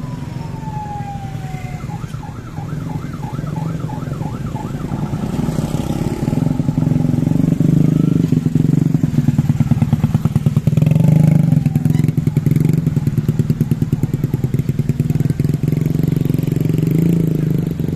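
A motor vehicle engine running close by, with a fast even pulse, getting louder about six seconds in. At the start a siren falls in pitch, and it warbles rapidly for a few seconds shortly after.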